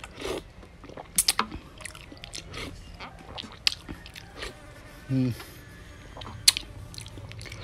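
Eating goat noodle soup from a metal spoon: slurping broth, with wet lip smacks and chewing. A short hummed 'mm' comes about five seconds in, and a sharp clink of the spoon on the plate about a second later.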